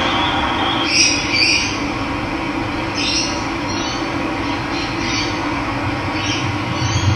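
Steady rush of running water, with a bird giving short calls about seven times over it.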